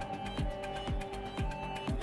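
Background electronic music with a steady beat: a deep kick drum about twice a second, quick hi-hat ticks and held synth notes.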